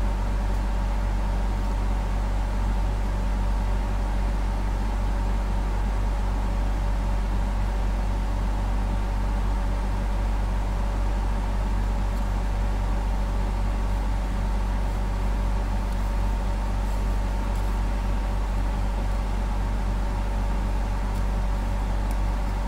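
A steady low hum that does not change, with a few faint scratches from a small screwdriver scraping silicone off a circuit board in the second half.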